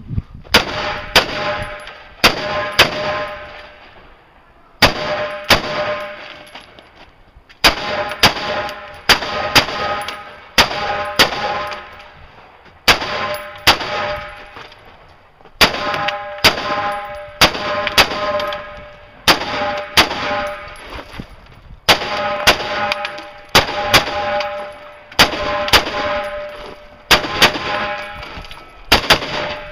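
Rifle shots fired in quick pairs and threes every two to three seconds through a timed course of fire. Most are followed by the metallic ringing of hit steel targets, which dies away over about a second.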